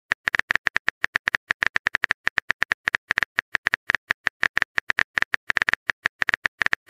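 Rapid phone-keyboard typing clicks, about nine a second with a few short gaps: a texting app's typing sound effect, signalling that the next message is being typed.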